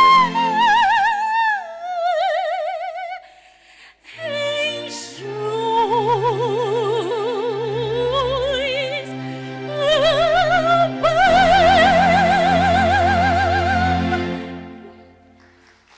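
A female soprano sings a classical aria in operatic style, with wide vibrato, over sustained instrumental accompaniment. After a short break about four seconds in, she ends on a long held note that fades out near the end.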